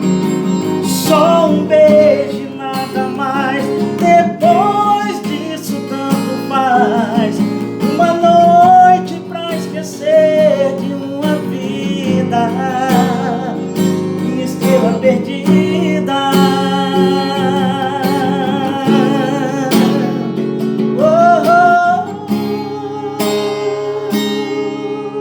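Song music with acoustic guitar accompaniment and a wavering, bending melody line. Near the end a long final note is held and fades.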